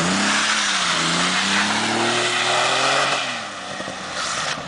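Ford Sierra's engine revving hard as the car pulls away, its pitch climbing and dropping several times over a loud rushing hiss. It fades about three seconds in, then revs up again at the very end.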